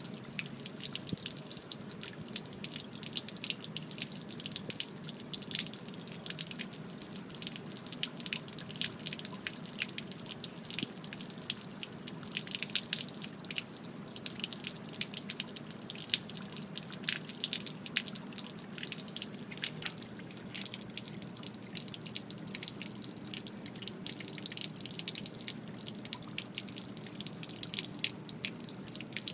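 A steady stream of water pouring from the transom drain of a Mako Pro Skiff's hull and splattering on concrete, with continuous irregular spattering: the water is draining out of the hull, the sign of the water getting into it.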